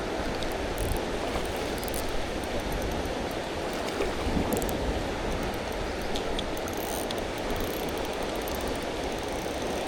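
Steady rushing of river water flowing, with a few faint ticks over it.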